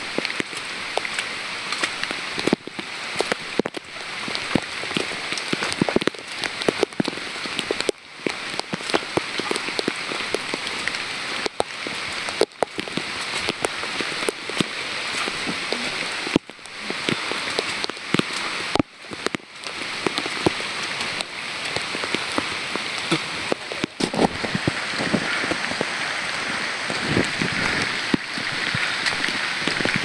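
Steady monsoon rain falling, with many close drops ticking near the microphone.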